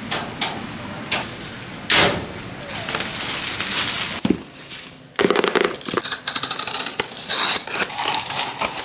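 Metal parcel locker doors being handled, with a few knocks and one loud bang about two seconds in. About five seconds in, a cardboard shipping box is opened: flaps and paper packing crinkle and rustle.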